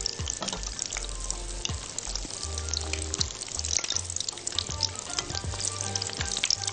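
Breaded minced-meat fingers deep-frying in hot oil, with a steady sizzle and many small crackles, while a metal spoon turns them over in the pan.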